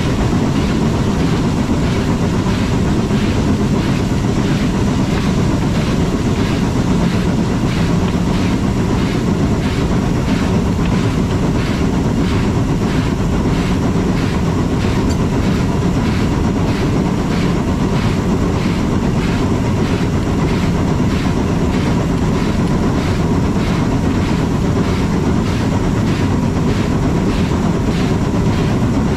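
Steam locomotive running on a rack-and-pinion mountain line, a steady heavy rumble with an even rhythmic beat about twice a second.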